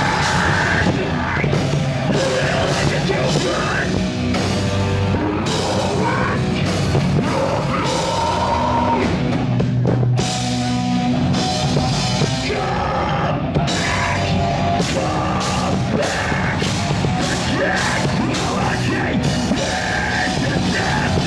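Live rock band playing: drum kit, electric guitars and sung, partly shouted vocals, with a brief break about halfway through.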